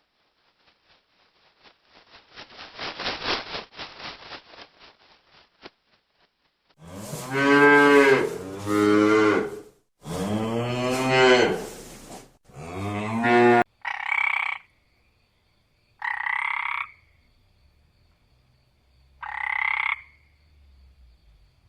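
A series of animal calls. First comes a rapid rattling train of pulses, then a cow mooing three times in long, loud calls. Then come four short croaking calls, one every two to three seconds.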